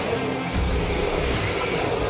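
Music playing, with small electric RC drift cars running on a smooth concrete floor underneath it.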